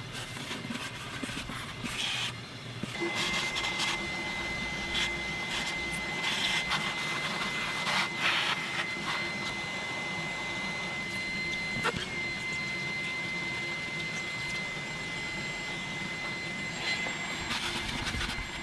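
Vacuum cleaner running in a car's interior, with knocks and scrapes as the nozzle is worked over the surfaces. A steady high whine sets in about three seconds in and stops shortly before the end.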